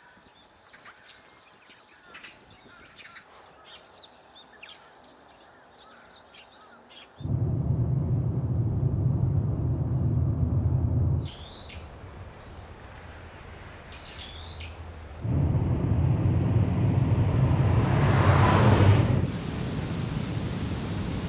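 Birds chirping over quiet ambience. About seven seconds in, a loud low rumble cuts in abruptly and stops just as suddenly four seconds later, leaving two short downward-sweeping bird calls. The rumble returns, swells into a rising whoosh and gives way to a steady hiss.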